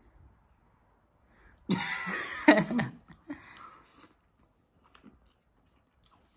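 Someone eating noodles: quiet at first, then about two seconds in a loud burst of mouth and throat sound lasting about a second, followed by a few faint clicks.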